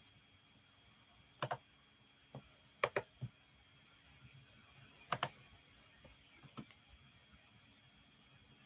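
Faint, scattered key clicks on a computer keyboard: single taps and quick pairs with pauses of a second or more between them.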